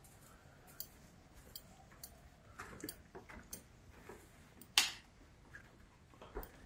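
Scattered light clicks and taps of handling and footstep noise while a handheld camera is carried across a wooden floor, with one sharp click about five seconds in.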